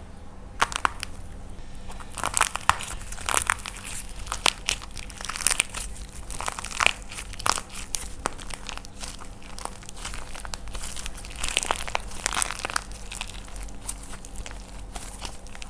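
Dried, painted plaster clay being crushed and cracked by hand: an irregular run of crunches and sharp crackles, several a second.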